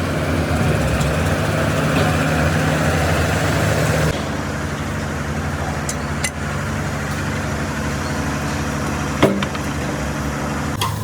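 Heavy diesel engine running steadily, most likely the excavator's. About four seconds in, the higher rushing noise over it stops and the engine runs on more quietly, with a few sharp metallic clicks and one knock near the end.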